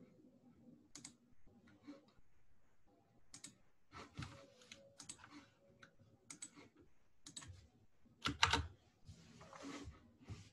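Faint, irregular typing and clicking on a computer keyboard, with a louder cluster of keystrokes about eight seconds in.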